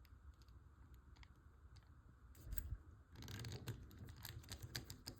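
Faint clicks and scraping of small plastic model parts being handled and a tiny screw being driven in with a small screwdriver, with a couple of soft knocks about halfway and a busier run of scraping and clicks after that.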